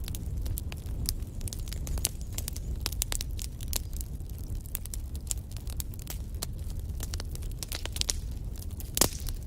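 Wood fire in a fireplace crackling, with frequent small sharp pops over a steady low rumble of the flames. One louder pop comes near the end.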